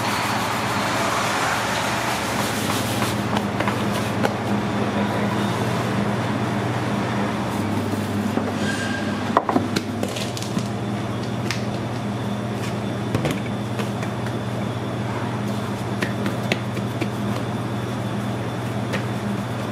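Steady low mechanical hum with a few light knocks and clicks.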